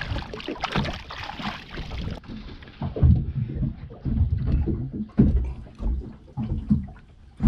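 Water splashing at the side of a boat as a fish is let go by hand, over the first couple of seconds; after that, irregular low rumbling bursts, several in a row.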